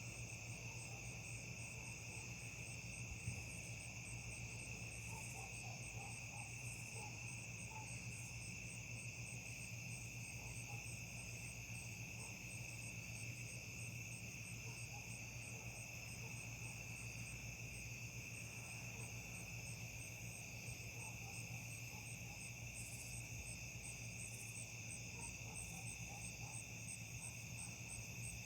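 Crickets and other night insects trilling steadily in overlapping choruses, one of them a high, fast, even pulsing. A faint steady low hum runs underneath.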